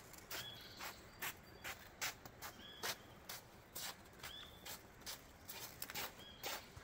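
Footsteps on a trail, about two a second and unevenly spaced. A bird gives a short high chirp several times.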